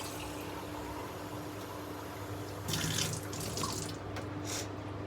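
Water running from a tap in a steady rush, with a brief louder splash about three seconds in.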